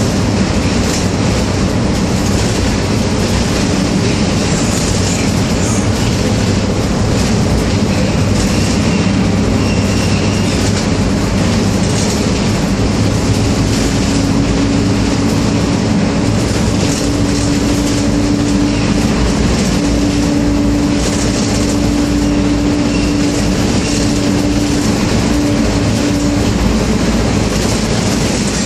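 Hong Kong public light bus (minibus) driving through a road tunnel at about 50 km/h, heard from inside the cabin: a loud, steady drone of engine and tyre noise with no let-up. A steady humming tone comes in about halfway through and fades out near the end.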